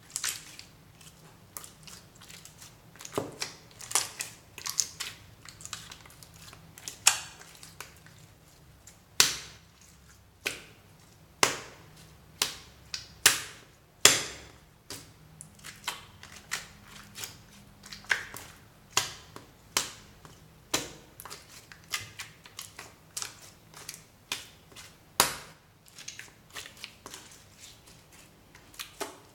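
Translucent slime being squished and kneaded by hand, giving irregular sharp pops and clicks, about one or two a second, some much louder than others.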